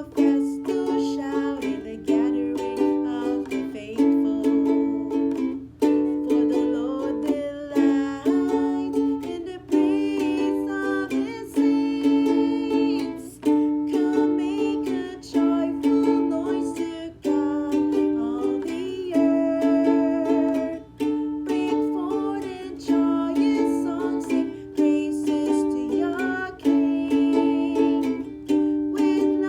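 Music: chords strummed on a plucked string instrument in a steady rhythm, each strum ringing and dying away.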